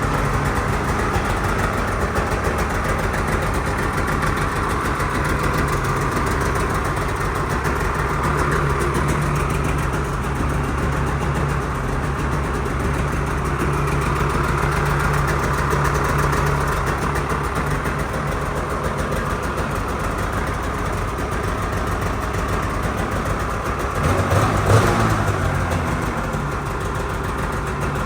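Polaris Switchback Assault snowmobile's two-stroke engine idling steadily, with a brief blip of the throttle near the end.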